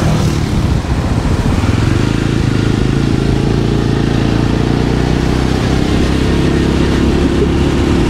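Motorcycle engine running steadily as the bike cruises along a road, with road and wind rush beneath it.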